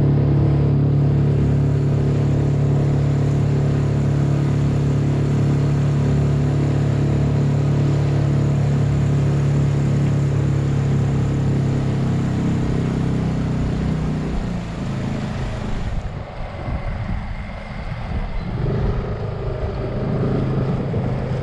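Outboard motor on an inflatable dinghy running steadily under way. About fourteen seconds in it is throttled back, and the steady hum gives way to a lower, uneven running sound.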